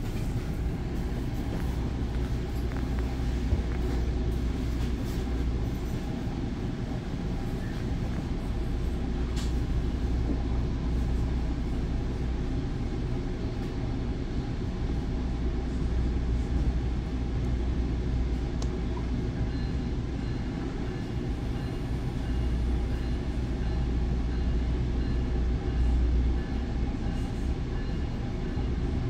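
Steady low rumble and hum inside a Bombardier MultiLevel commuter rail coach standing at a station platform. A faint, evenly repeating high tone joins in during the last several seconds.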